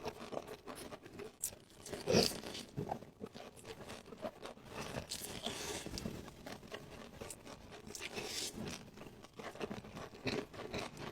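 Eating sounds: irregular crunchy bites and chewing, with the loudest crunch about two seconds in.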